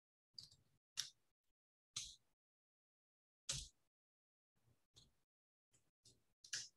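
A few scattered, faint computer keyboard keystrokes, about eight short separate clicks spread over several seconds with near silence between them.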